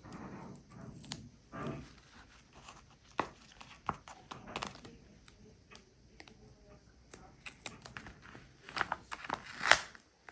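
Paper pieces of a handmade paper quiet book being handled: scattered soft rustling and crinkling with small clicks and taps, louder near the end.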